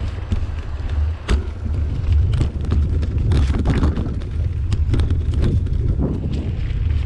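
Mountain bike riding fast down a leaf-strewn dirt singletrack: heavy wind rumble on the microphone, with tyres crunching over leaves and irregular clattering knocks from the bike over roots and bumps, the sharpest about a second in.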